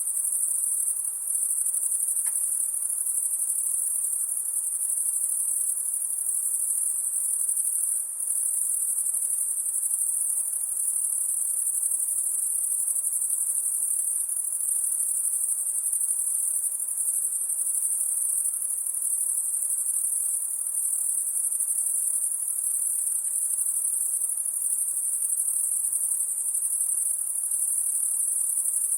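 High-pitched night insects, crickets or katydids, trilling in a steady unbroken chorus.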